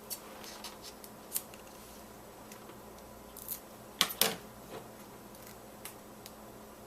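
Light clicks and taps from paper-craft pieces and foam adhesive being handled, with a sharper double click about four seconds in.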